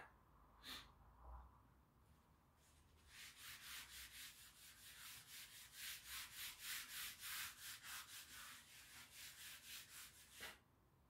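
Chalkboard being wiped clean with a hand-held cloth: quick back-and-forth rubbing strokes, about three a second, starting about three seconds in and stopping shortly before the end.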